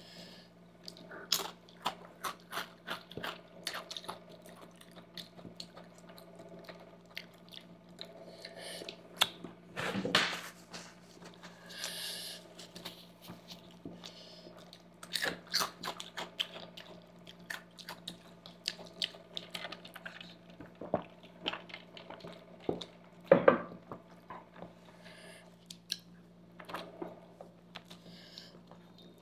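Close-miked eating sounds of pasta being chewed, with scattered clicks and scrapes of forks on the foil-lined table and a couple of louder mouth-noise bursts.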